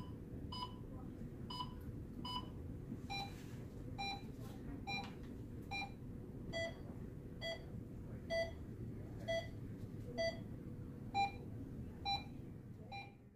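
Pulse oximeter beeping with each heartbeat: a steady series of short electronic beeps, roughly one a second, stepping down in pitch about three seconds in and varying slightly in pitch after that, as the tone follows the oxygen saturation reading.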